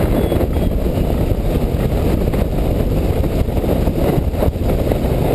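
Strong wind buffeting the microphone: a loud, steady, gusting rumble with no tones in it.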